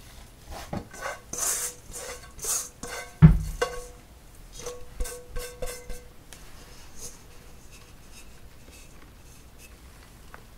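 Stainless steel mixing bowl scraped and knocked while wet rice-flour dough is pulled out of it by hand, each contact ringing briefly. A dull, heavier knock comes a bit over three seconds in. The handling goes quiet after about six seconds.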